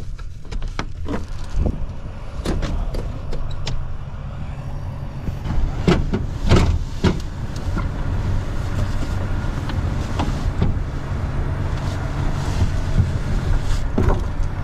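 Knocks and clatter from a pickup-truck camper shell and truck bed as someone moves about and climbs out the open rear hatch, with the loudest thumps about six to seven seconds in. A steady low rumble runs underneath.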